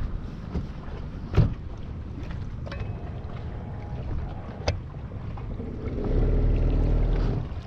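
Boat-deck knocks, twice, over wind and water noise. About six seconds in, the bow-mounted electric trolling motor runs as a low steady hum for over a second, then stops.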